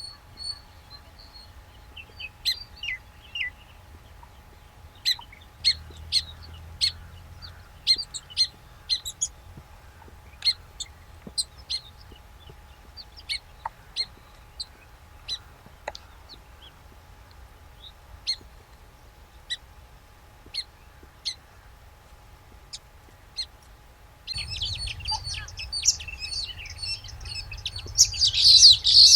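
Baya weavers chirping: short, scattered high chirps at first, breaking into a dense chattering chorus about three quarters of the way in that grows loudest near the end.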